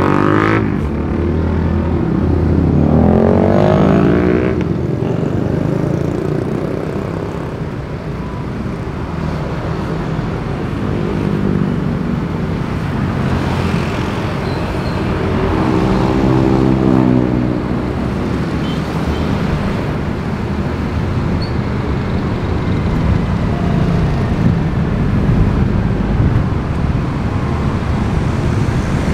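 City street traffic of motorcycles and buses heard from a moving vehicle: a steady rumble of engines and tyres. Nearby engines rev up in rising tones in the first few seconds and again around the middle.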